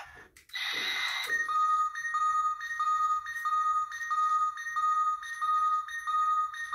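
Ultraman Dyna super key sound toy playing its colour timer warning sound: a short burst of noise, then two electronic beeps, high then low, alternating about one and a half times a second.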